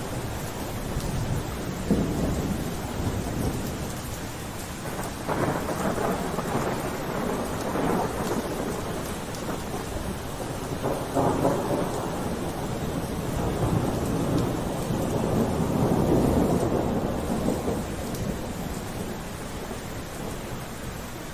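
Steady rain with several rolls of thunder, low rumbles that swell and fade, the longest and loudest rolling through the second half.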